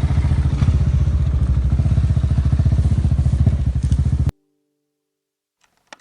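Motorcycle engine running at a steady speed with a rapid, even pulse, then cutting off suddenly a little over four seconds in.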